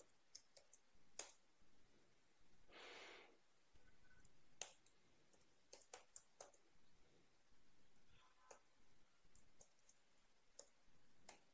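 Near silence with faint, irregular clicks of typing on a computer keyboard, and a brief soft hiss about three seconds in.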